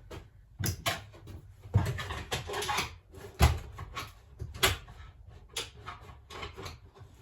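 Wooden cabinet drawer knocked, rattled and scraped by hand as its rear release catches are worked to free it: a string of irregular knocks and clacks.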